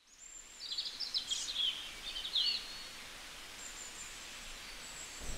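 Wild birds calling over a soft outdoor hiss: a run of quick high chirps in the first half, then fainter thin high calls.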